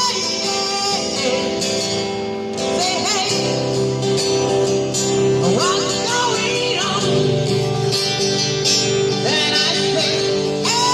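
Busker singing with guitar accompaniment, the voice gliding over held chords.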